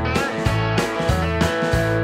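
A rock band's studio recording playing an instrumental stretch: guitars over bass guitar and drum kit, with one note bent up and back down near the start.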